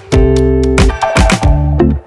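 Background music with a steady beat: held bass and keyboard notes and regular drum hits.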